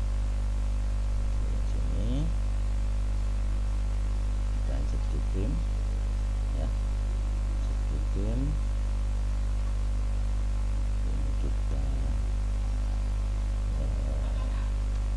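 Steady electrical mains hum with a stack of steady overtones, running unbroken. A few faint, short rising calls sound in the background now and then.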